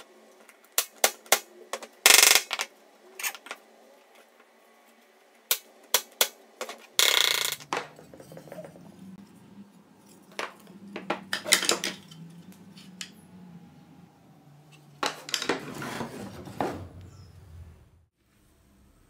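Wooden pine brackets handled and set down on a wooden workbench: scattered sharp knocks and clatters, several in quick succession, with a couple of longer noisy scuffs.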